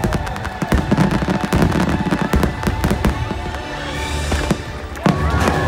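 A dense barrage of fireworks bangs and crackling over the show's music. A louder volley of crackling bursts starts about five seconds in.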